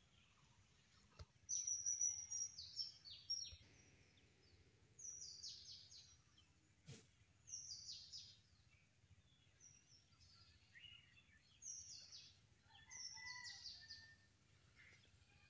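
A songbird singing in about five short phrases of quick, high, falling chirps, with pauses between them, over faint outdoor background noise.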